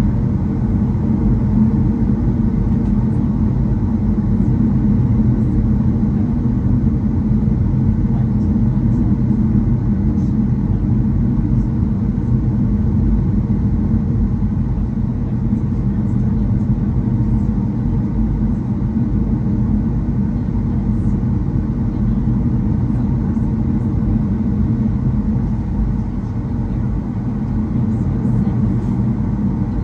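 Steady low drone inside a Boeing 737 airliner's cabin on the ground, its jet engines running at idle, with a hum of several low tones that holds even throughout.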